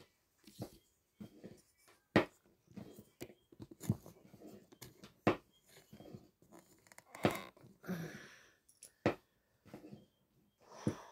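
Close-up handling sounds of hands making dumplings: irregular soft taps, rustles and scrapes, with about six sharper knocks spread through.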